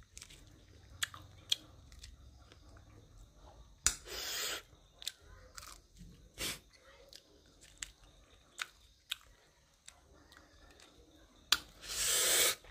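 Close-up chewing and biting of corn, with scattered small crunchy clicks. Two louder hissing rushes come about four seconds in and near the end.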